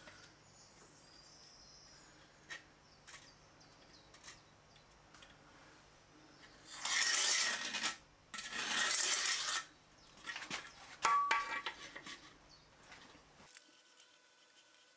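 Two scratchy strokes, about a second each, of a marker scraping on a textured plaster wall as drill spots are marked along a metal rack bar. A few light metallic clicks and taps follow, one with a brief ring.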